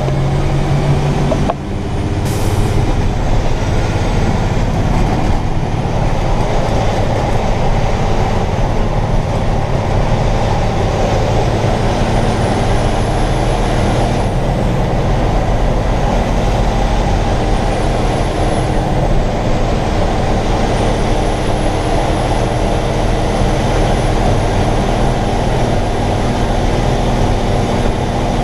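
Heavy vehicle engine running steadily, heard from inside the cab, with a faint thin high whine rising and falling over it.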